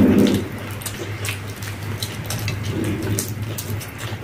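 Two people eating doi fuchka close to the microphone: wet chewing and smacking with crunching of the puffed puri shells, heard as many short irregular clicks, over a steady low hum.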